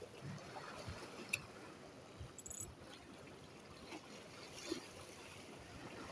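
Sea water sloshing and splashing against concrete seawall blocks, a steady wash with a few faint knocks.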